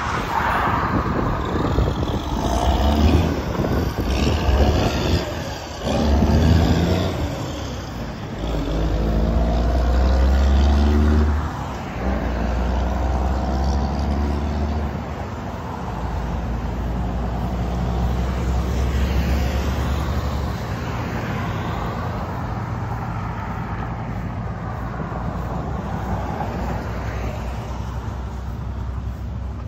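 Highway traffic going by: several vehicles pass with rising and falling engine pitch, and one engine speeds up loudly from about eight seconds in. A steadier low engine hum follows.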